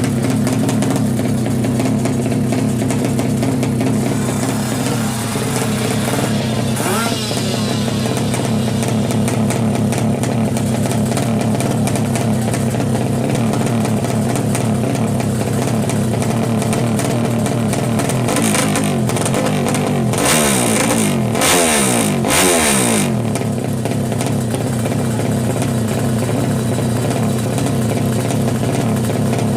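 Tuned drag-racing motorcycle engine running steadily, revved up and down several times about two-thirds of the way through with a few sharp, loud blips.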